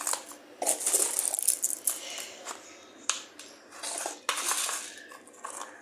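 Crackling rustle and sharp light clicks of crunchy snack food being handled on a plate, in irregular bursts.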